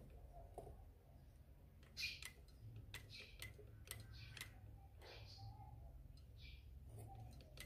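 Faint, irregular clicks and ticks from an industrial single-needle sewing machine's mechanism as it is turned slowly by hand, the needle bar rising and falling past the rotary hook while the hook timing is checked.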